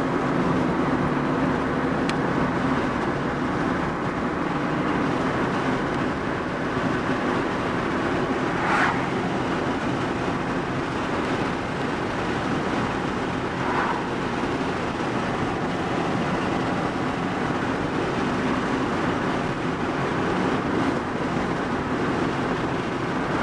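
Steady road and engine noise of a moving car heard from inside the cabin, with a low even drone underneath.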